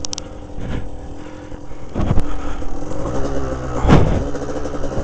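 Kawasaki KDX200 two-stroke dirt bike engine running under the rider, rising in revs about three to four seconds in, with a couple of sharp knocks about two and four seconds in.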